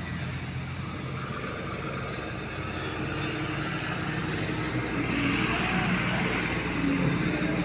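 Steady engine hum of motor vehicles, swelling a little about five to seven seconds in, as if one passes close by.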